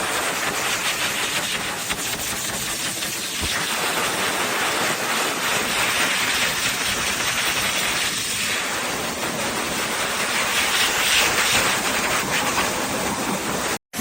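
EGFKI 5.2HP/3800W high-velocity pet dryer running, a loud steady rush of blown air. It cuts out for an instant near the end.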